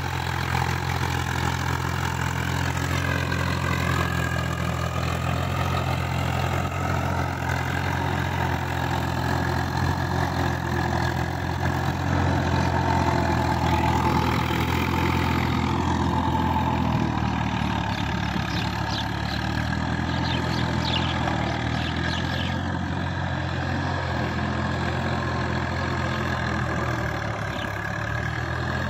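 Tractor diesel engine running steadily under load while pulling a tillage implement through a flooded paddy field. Its note shifts slightly a little past halfway.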